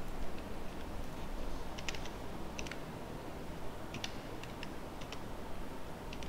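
Computer keyboard keys clicking in short, irregular clusters of a few keystrokes each while code is typed and edited.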